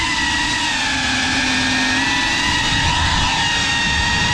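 FPV drone's electric motors and propellers whining at a steady throttle: a high, multi-tone hum holding an even pitch over a rushing hiss.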